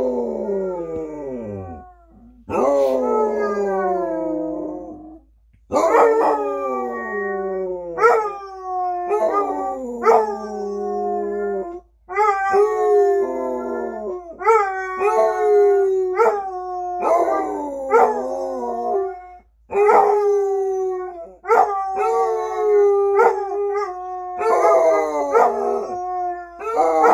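Two basset hounds howling together, a run of loud howls that each rise quickly and then slide down in pitch. The first few are long, a couple of seconds each; after that they come shorter and faster, about one a second, with the two voices overlapping.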